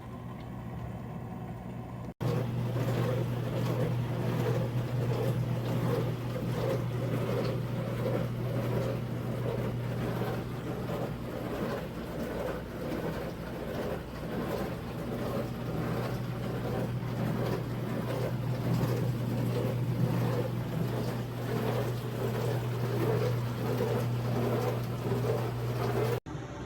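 Portable countertop dishwasher running: a steady motor hum with water churning inside during the wash. It starts abruptly a couple of seconds in and cuts off just before the end.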